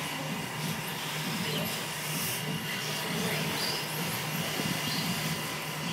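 Electric 1/10-scale 4x4 off-road RC buggies running on the track: a thin motor and gear whine over a steady hiss.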